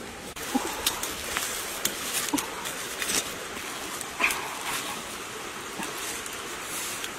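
Crackling and scraping of a knife working in hot campfire ashes and embers around a bamboo shoot roasting in them, with short sharp clicks over a steady hiss and a few faint short squeaks.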